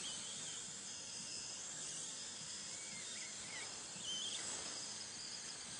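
A steady hiss, with a few faint short squeaks through it.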